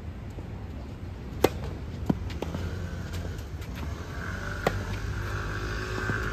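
Tennis serve on a clay court: a few sharp taps as the ball is bounced before the serve, then the crack of the racket striking the ball about four and a half seconds in, over a steady low outdoor rumble.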